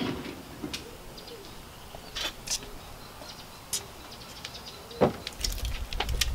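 Quiet outdoor ambience with a few brief bird chirps and scattered clicks. There is a sharp knock about five seconds in, then a low rumble near the end.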